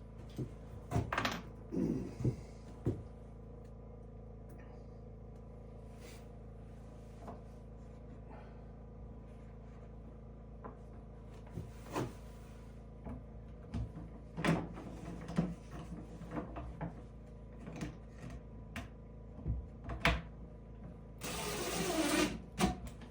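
Scattered wooden knocks and clicks from handling and fitting wooden cabinet doors, over a faint steady hum. A short scraping or rasping noise lasts about a second near the end.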